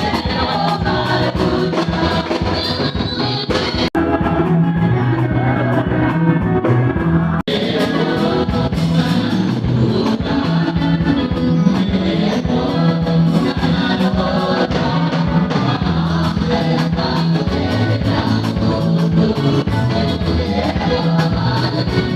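Background music with singing and a steady beat, cutting out for an instant twice, about four and seven seconds in.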